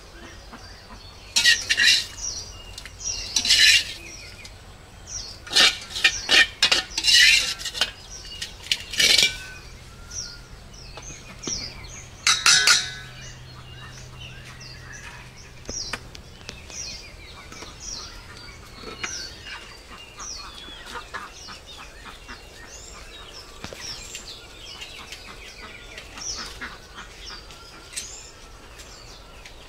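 Metal spatula scraping and knocking against a metal wok in short bursts during the first half. Birds chirp throughout.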